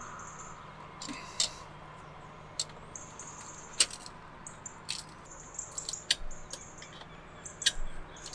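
Marking out on a solar panel's aluminium frame with a pen and a metal square: short scratchy pen strokes and light clicks of the square being set down and moved, about a dozen in all, over a faint steady hum.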